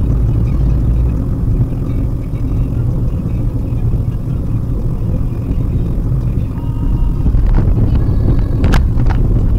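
Steady low road and engine rumble of a Maruti Suzuki WagonR driving, heard from inside the cabin. Near the end come a few sharp clicks and brief faint tones.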